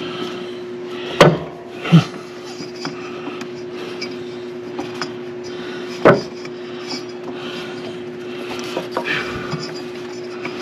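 Knocks and rubbing of a new drive belt being worked around the hydro pump pulleys of a Scag Wildcat mower: two sharp knocks a little over a second in, a third about six seconds in, with small clicks between, over a steady low hum.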